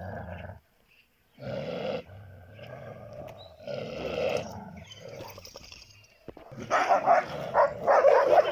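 Shepherd dogs growling at one another, breaking into louder, rougher snarling about two-thirds of the way in as they grapple. The dogs are quarrelling over a female in heat.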